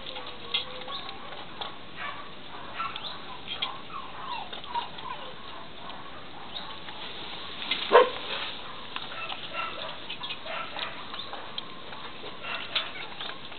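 Young puppies whimpering and squeaking in short, high cries, with small scratching and rustling sounds as they move on a blanket; one louder yelp about eight seconds in.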